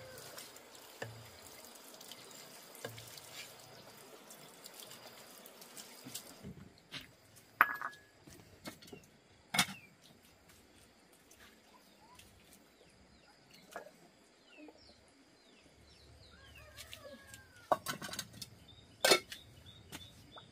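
Water trickling for about six seconds, then stopping suddenly, followed by a few sharp knocks and clicks with faint short chirps between them.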